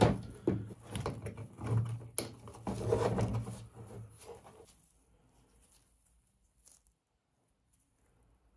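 Hand-handling noise of 3D-printed plastic parts being fitted onto a plastic test stand: small clicks, knocks and rubbing for about the first four and a half seconds, then silence.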